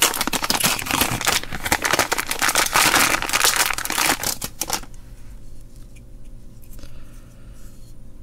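Thin plastic packet being crinkled and torn open by hand, a dense crackling for about the first five seconds, then only faint handling sounds as the small plastic charger is taken out.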